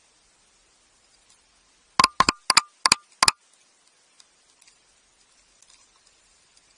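Five sharp knocks in quick succession about two seconds in, from a king penguin's bill tapping against the camera. Faint scattered ticks sound around them.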